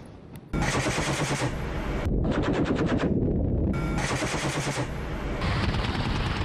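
Rapid bursts of automatic cannon fire from an attack helicopter's chin-mounted turret gun, starting about half a second in. Around two seconds in, one burst runs at about ten shots a second.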